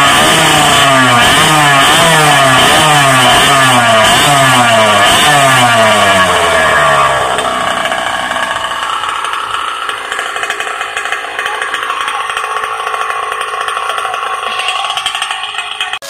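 Small two-stroke engine of a China-made stand-up gas scooter, running through an expansion-chamber exhaust. For about seven seconds the throttle is blipped in quick repeated revs, roughly one and a half a second. The engine then drops back to a quieter, steady idle.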